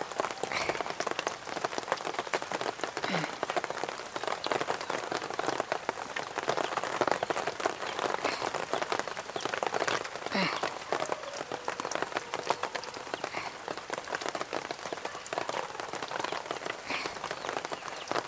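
Hot oil sizzling and crackling steadily around folded maida-dough pastries (madakku) deep-frying in a pan.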